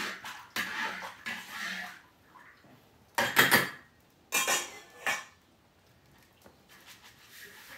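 Metal wok spatula scraping against a large wok as it is washed: a scraping stretch, then two louder, ringing scrapes about three and four and a half seconds in.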